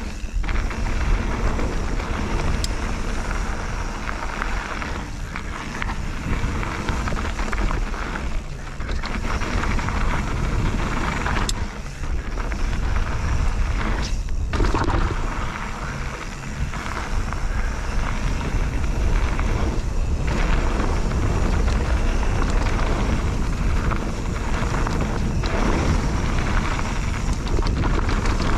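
Wind buffeting a GoPro's microphone, together with the tyre and frame noise of a Bird Aeris 145 full-suspension mountain bike riding fast down a bike-park trail. The noise is loud and continuous, with a brief drop about halfway through.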